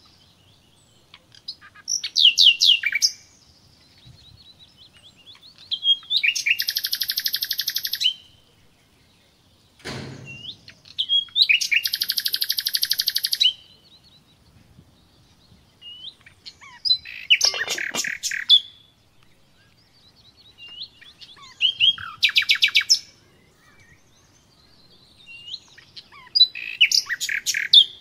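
A songbird singing six rapid trilled phrases, each one to two seconds long and a few seconds apart. A single short knock comes about ten seconds in.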